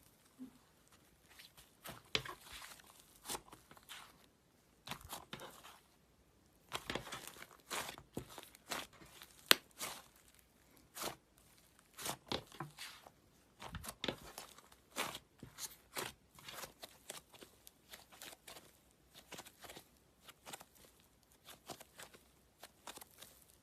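Slime being pressed, squeezed and stretched by hand, making irregular runs of crisp crackles and clicky pops, with one sharper pop a little before halfway.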